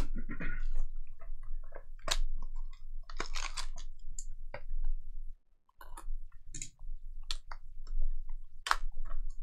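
Plastic shrink wrap crinkling and tearing as cardboard trading-card boxes and foil packs are handled, with scattered clicks and short rustles and a longer crinkle a few seconds in.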